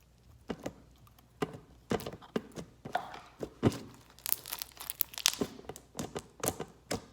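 Crunchy slime being squished and pressed by hand, giving irregular pops, clicks and crackles that come thicker toward the middle.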